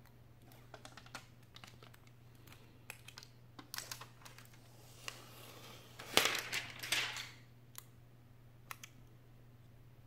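A thin plastic-and-glass tablet touch-screen digitizer panel being handled: scattered light clicks and taps, then a louder crinkling rustle for about a second and a half around six seconds in, over a faint steady low hum.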